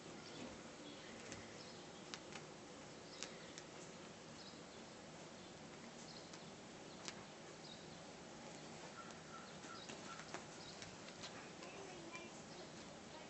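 Faint sounds of ragdoll kittens playing on bedding: scattered light clicks and taps from paws and claws on fabric over a steady low hiss, with a few faint, short, high squeaks.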